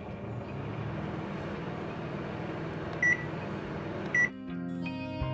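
Microwave oven running with a steady hum. A short high beep sounds about three seconds in and another just after four seconds, where the hum cuts off.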